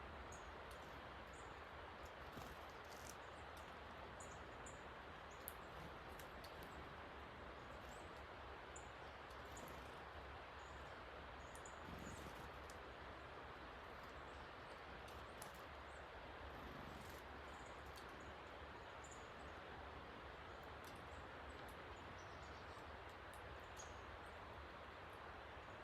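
Rain-swollen creek rushing steadily, with frequent short, high chirps from small birds at a feeder over it.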